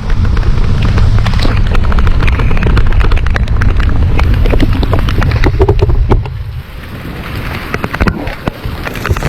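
Heavy rain in a thunderstorm with wind buffeting the microphone, and a rapid scatter of sharp clicks like drops striking close by; the low wind rumble drops away suddenly about six seconds in.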